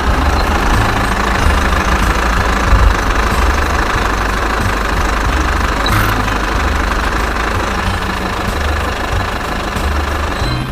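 An engine running steadily with a low, uneven throbbing rumble, the kind of heavy-machinery engine sound that goes with a construction vehicle at work.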